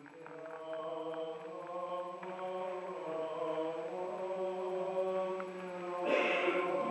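Orthodox liturgical chant: voices singing a slow melody over a steady held low note. A brief burst of noise cuts in about six seconds in.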